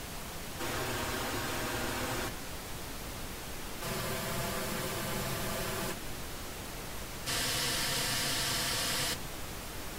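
Pink-noise test signal from a main-and-delay loudspeaker system, heard through one measurement microphone after another: the hiss changes in level and tone every one and a half to two seconds, some stretches with a hollow, ringing colour. The loudest, brightest stretch, about seven seconds in, is the delay-right microphone, which sounds different from the others.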